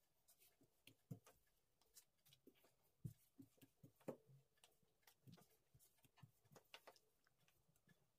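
Faint, irregular taps and knocks of a long thin wooden rolling pin (oklava) on a wooden tabletop as thin pastry dough is rolled out around it, with the soft rustle of the floured dough sheet.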